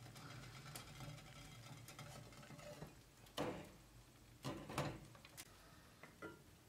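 Stainless steel teapots being handled on a cast-iron stove top: a few faint metal knocks and scrapes, the loudest about halfway through, then a lid clinking into place near the end.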